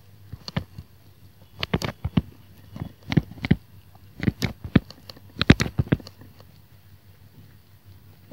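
Stylus tapping and scratching on a tablet screen while handwriting, a run of sharp irregular clicks in short clusters, fading out for the last couple of seconds.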